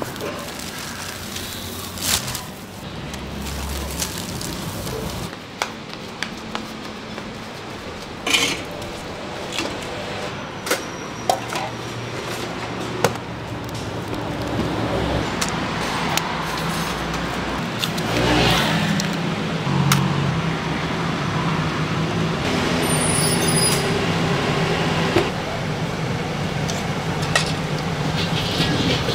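Roadside street-food stall ambience: road traffic passing, background voices, and a few sharp knocks and clinks of kitchen utensils scattered through it.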